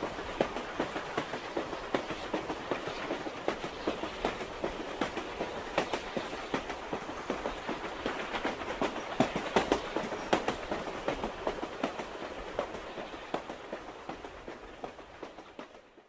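Suburban electric commuter train (elektrichka) running along the track, heard from inside the carriage: a steady rumble with a dense run of irregular wheel clicks and clatter on the rails, fading away over the last few seconds.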